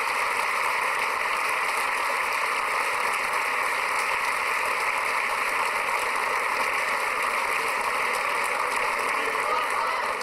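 Large crowd applauding steadily, a dense even clapping with no voices standing out.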